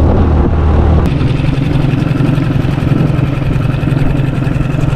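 Small outboard motor on an aluminium jon boat running steadily under way. About a second in, the sound changes abruptly to a higher engine note with a fast, even pulsing.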